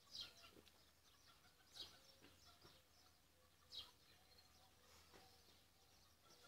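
Near silence with faint outdoor background, broken by a few short, distant bird chirps.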